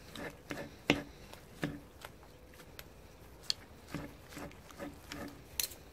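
Smoked pork shoulder being pulled apart with a utensil in each hand on a wooden cutting board: irregular clicks and taps as the utensils strike the board, a few a second, with soft tearing of the meat.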